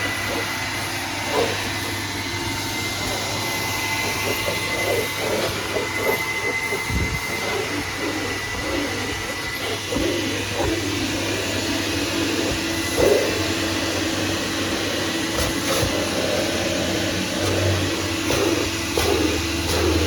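1985 Kärcher coin-operated twin-motor vacuum running steadily with a thin high whine, drawing good suction, with scattered knocks and rubbing as the hose works over the car's interior.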